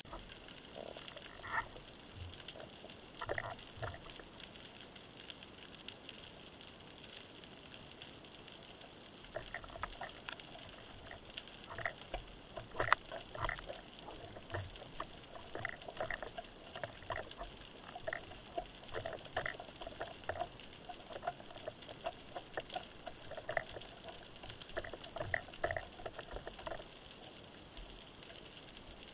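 Underwater sound of pebbles clacking and knocking against each other and the rock as a diver pulls stones away from an octopus den: a few sharp clicks early on, then many irregular clacks from about ten seconds in, over the steady hiss of the sea.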